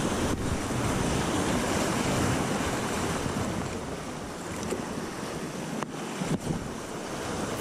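Rough sea surf washing and breaking over boulders in a steady rush, with wind buffeting the microphone.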